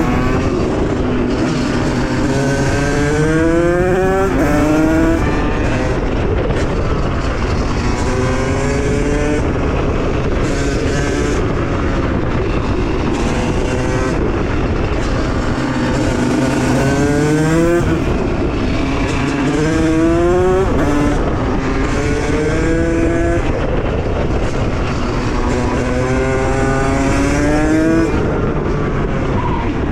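Two-stroke engine of a Beta RR50 with a 77 cc Stage 6 big-bore kit on its Minarelli AM6 engine and a KTM SX85 expansion-chamber exhaust, revving up hard several times: the pitch climbs in steps with short breaks like gear shifts, then drops back before climbing again.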